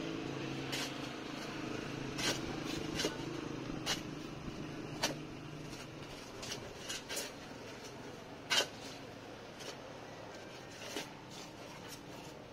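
Steel shovel chopping and scraping into dry, stony ground while digging a foundation trench along the layout lines: irregular sharp strikes, the loudest about eight and a half seconds in. A low steady hum underneath fades out about halfway through.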